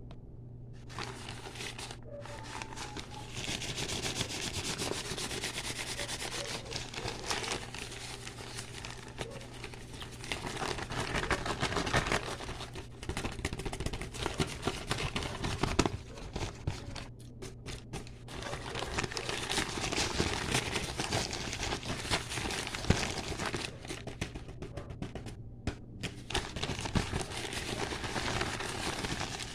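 Close-miked ASMR crinkling and crackling: a dense, fast run of fine rustles and crackles that swells louder about a third of the way in and again past the middle, over a faint steady low hum.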